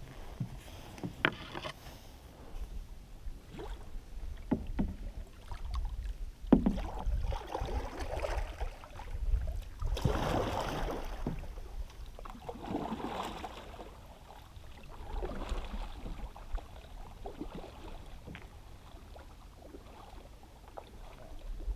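Double-bladed kayak paddle dipping and pulling through calm water as a solo canoe is paddled, the blades splashing and swishing in a rhythm of one stroke every two to three seconds. A few sharp knocks come in the first seconds, and a steady low rumble runs underneath.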